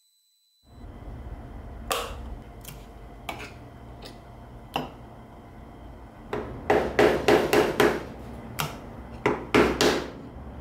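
Brass pieces knocking and clinking against the steel vise and table as the milled-out brass sheet is lifted off and the cut coins are pried loose with a hand tool: scattered single knocks, then two runs of rapid knocks in the second half. A low steady hum begins about a second in.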